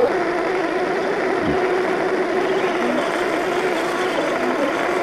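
1/10-scale RC rock crawlers' electric motors and geartrains whining steadily as they crawl over rock, with a short falling sound about a second and a half in.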